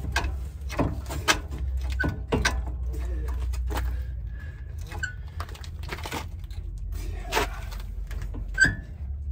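Irregular metallic clicks and clinks of hand tools, a wrench and a screwdriver, working against a car's rear disc brake caliper. A few of them ring with a short ping, the sharpest near the end, over a steady low rumble.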